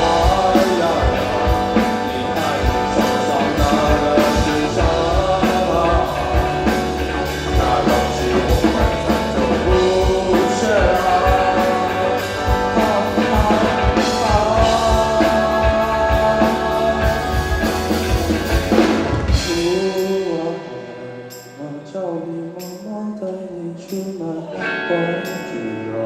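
Rock band music with singing, drums, bass and guitar playing a full, dense passage. About twenty seconds in, the drums and bass drop away, leaving a quieter, sparser section with a light tick about once a second.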